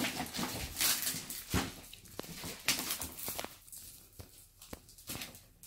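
Cardboard box being handled and its packing tape pulled off: irregular scraping and rustling scrapes.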